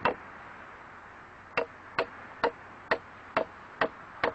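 Wood carving by hand: a mallet striking a chisel into wood in sharp knocks, one at the start, then after a pause a steady run of about two knocks a second.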